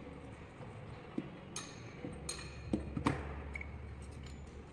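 A few light, separate clicks and knocks as a small electric motor and hand tools are handled on a workbench, the loudest about three seconds in, over a steady low background hum.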